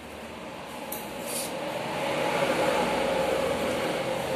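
A child slurping a long strand of instant noodles: one long, steady sucking sound that grows louder over the first couple of seconds and then holds.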